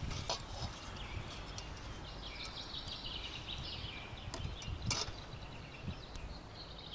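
Birds chirping and singing in the background, with a few sharp metal clinks from a spoon and a hinged wire grill basket being handled and opened. The loudest clink comes about five seconds in.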